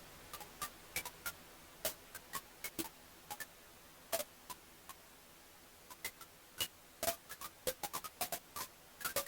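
Wood fire crackling in a fireplace: irregular sharp pops and snaps over a soft hiss, sparser for a second or two in the middle, then busier again.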